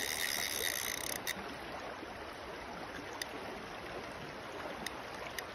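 River current rushing steadily over a shallow riffle. In the first second a high, steady whine sounds over it and stops abruptly, followed by a few sharp clicks.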